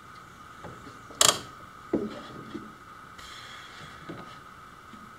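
Bar clamps being handled and tightened on a plywood sheet: one sharp click about a second in, then a duller knock and a few softer knocks of clamp and wood.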